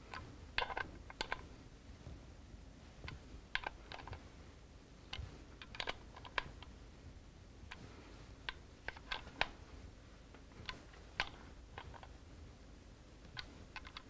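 Faint, irregular light metallic clicks and taps from a socket and dial-type torque wrench working on the cam plate bolts as they are tightened to torque.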